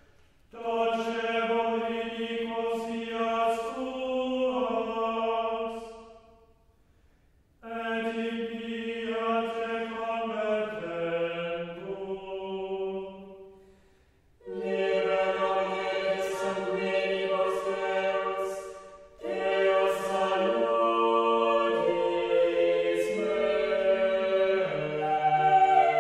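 Background music: slow, sustained chant-like vocal chords in long phrases, breaking off into short pauses three times.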